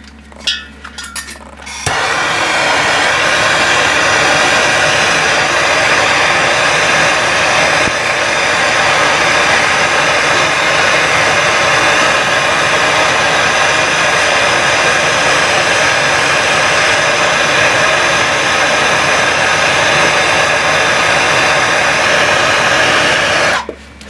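Handheld gas soldering torch burning with a steady hiss, heating a copper pipe joint for soldering. It comes on about two seconds in after a few clicks and is shut off near the end.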